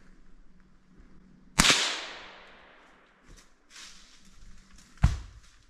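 Two gunshots about three and a half seconds apart, the first echoing away over about a second and a half.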